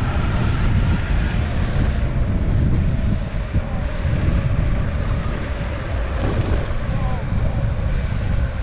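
Wind buffeting the microphone over the steady rumble of an electric skateboard rolling on city pavement.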